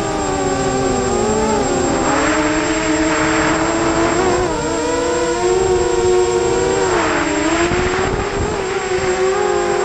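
FPV quadcopter's electric motors and propellers whining as it flies, the pitch dipping and climbing back twice with throttle changes, with bursts of rushing wind from the fast flight.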